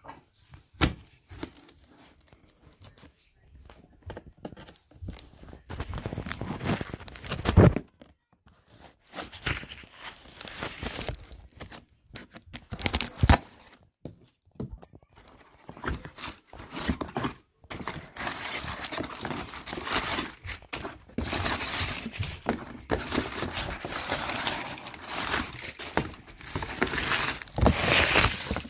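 Cardboard shipping box being cut, torn open and handled, with irregular ripping and crumpling noises and a few sharp knocks, the rustling thickening in the second half.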